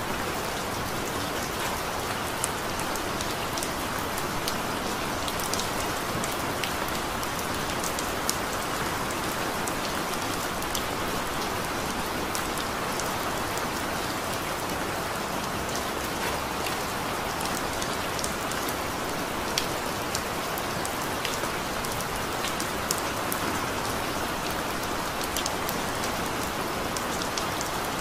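Heavy rain falling steadily: an even, unbroken hiss with scattered sharper drop hits.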